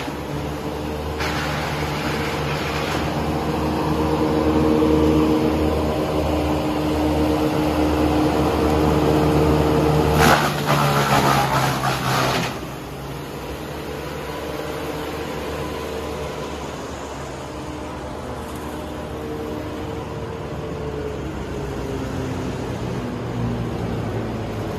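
An engine running, its pitch shifting slowly, with a louder noisy stretch of about two seconds some ten seconds in.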